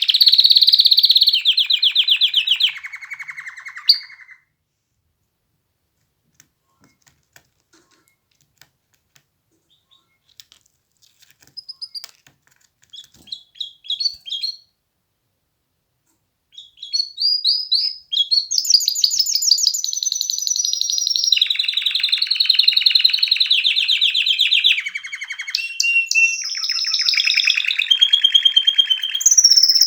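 Domestic canary singing in fast trills and rolls. The song breaks off about four seconds in, and a few soft short notes follow in the gap. Full song resumes for the last thirteen seconds or so.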